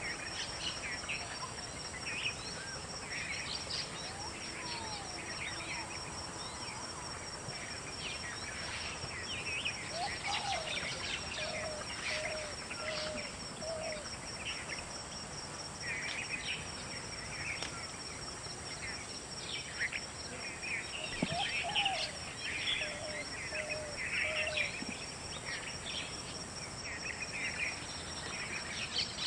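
Several small birds chirping and calling in a busy, overlapping chorus, over a steady high trill. Twice a lower call repeats in a short run of notes, near the middle and about two-thirds of the way through.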